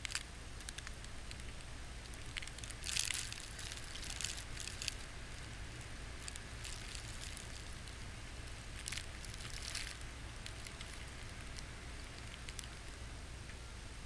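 Wind-driven blizzard snow hitting the camera, a crackling, ticking patter that comes in gusts about three seconds in and again near ten seconds, over a low steady rumble.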